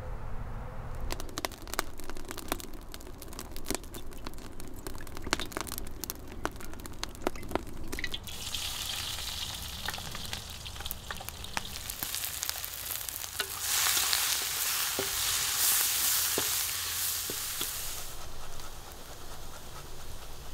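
A knife chopping quickly on a wooden cutting board. About eight seconds in it gives way to food frying in hot oil in a pot over a wood fire: a steady sizzle with a spatula stirring and scraping. The sizzle grows louder about halfway through.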